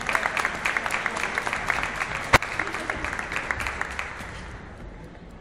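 Audience applauding, the clapping thinning out and dying away about four seconds in. One sharp, louder crack stands out about two and a half seconds in.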